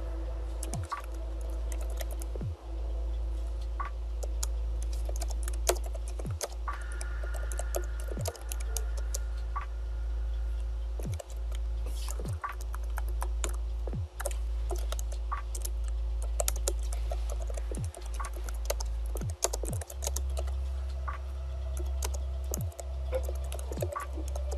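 Typing on a computer keyboard: irregular keystrokes and short runs of clicks, over a steady low hum.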